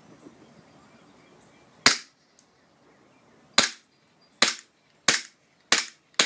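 KWA ATP gas blowback airsoft pistol being test-fired in single shots, each a sharp crack. The first shot comes about two seconds in, then five more follow roughly every half to three-quarters of a second.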